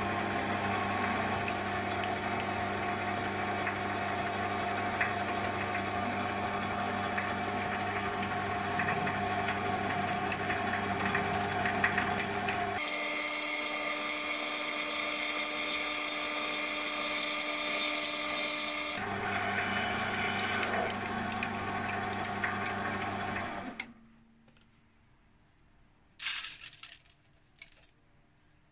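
Sieg C3 mini lathe running with a steady motor hum while a drill bit in the tailstock chuck drills a small brass workpiece. In the middle stretch the sound turns brighter and noisier where the drilling is sped up. The lathe stops about 24 seconds in, followed by a few faint clicks.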